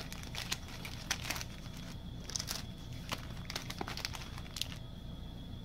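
Trading-card pack wrappers crinkling and rustling as they are handled, in short scattered crackles with small gaps between them.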